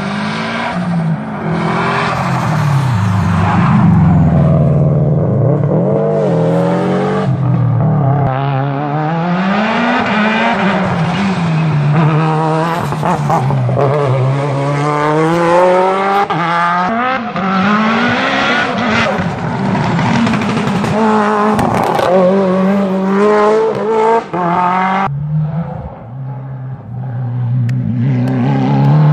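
Rally-prepared hillclimb cars racing up a mountain road through a bend, engines revved hard. Their pitch climbs and drops again and again as they shift gears and lift for the corner. About 25 seconds in the sound changes abruptly and another car is heard coming up.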